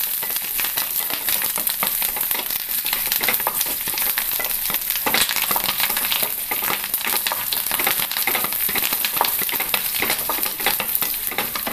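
Sliced shallots, green and dried red chillies, curry leaves and mustard seeds sizzling and crackling in hot coconut oil in a non-stick pan, stirred continuously with a wooden spatula. This is a South Indian tempering being fried until the shallots brown.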